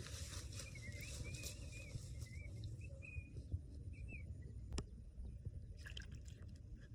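A bird chirping in a run of short wavering notes over a low steady rumble, with one sharp click about five seconds in.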